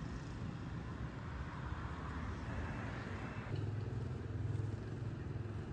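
A motor running steadily with a low rumble and noisy hiss; about three and a half seconds in the rumble deepens and grows louder.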